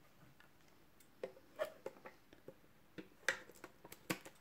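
A few faint taps and light crinkles as a shrink-wrapped metal trading-card tin is handled, the strongest two taps near the end.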